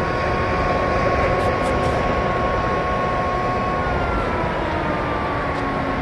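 Outdoor warning siren sounding a steady multi-tone wail during a siren test, its pitch starting to fall about four seconds in as it begins to wind down, under a loud steady rush of noise.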